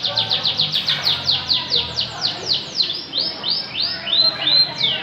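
Canary singing: a fast trill of repeated downward-sweeping notes, about seven a second, that slows about three seconds in to a few longer, lower sweeping notes.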